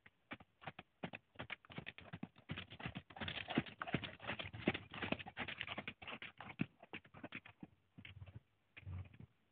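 Hoofbeats of a Thoroughbred horse moving over sand arena footing: irregular knocks that grow loudest as the horse passes close, about midway, then thin out as it moves away.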